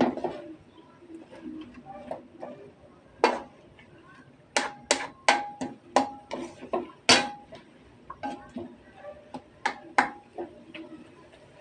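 A spatula stirring kangkong (water spinach) in a metal wok, knocking against the pan in a string of irregular sharp clacks, several of which leave the wok ringing briefly.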